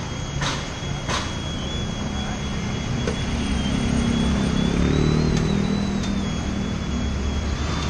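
Road traffic on the highway: a motor vehicle's engine hum builds and shifts in pitch as it passes, under a thin, steady high-pitched whine. Two sharp clicks come in the first second or so.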